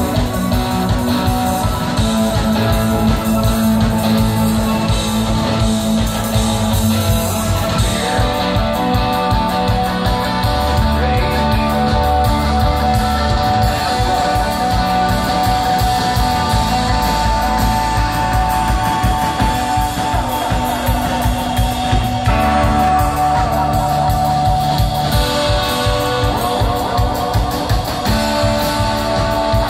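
Instrumental ambient rock trio playing live: sustained electric guitar lines over drums keeping a steady beat.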